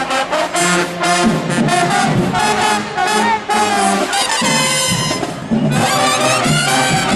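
Brass band music, with trumpets and trombones playing sustained, shifting notes.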